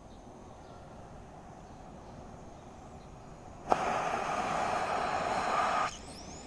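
Oxy-LPG cutting torch opening up with a sharp pop about three and a half seconds in, then a loud steady hiss of gas jetting from the tip for about two seconds, which cuts off abruptly as the valve is shut.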